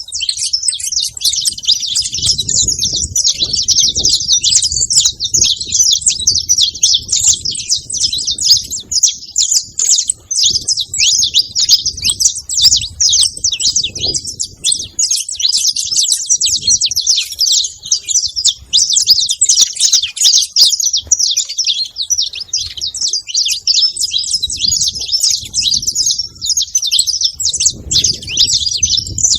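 Saffron finches, a male and a female, chirping rapidly and without pause, their high calls overlapping in a dense stream.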